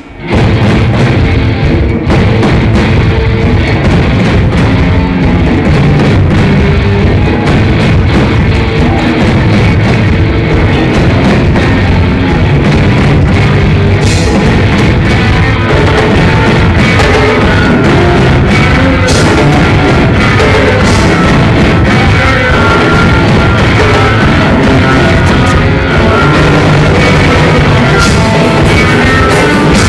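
Rock band playing electric guitars and drums at a steady high level, all coming in together at once at the start.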